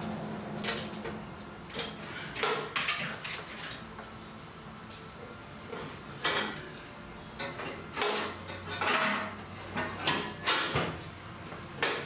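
Irregular metal clunks, knocks and scrapes as the steel fuel tank of a 1977 VW Bus is worked loose by hand and shifted in its bay.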